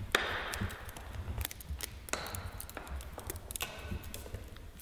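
Hands handling things on a table: a scattering of small, irregular clicks and taps, with a brief rustle in the first second.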